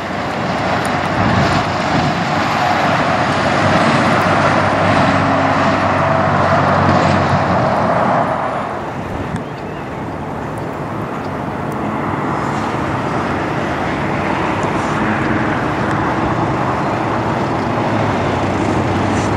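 Semi-truck diesel engines and tyres. A long-hood Kenworth passes loudest over the first eight seconds and fades about nine seconds in. Then a Kenworth T680 tractor rolls slowly closer, its diesel running steadily.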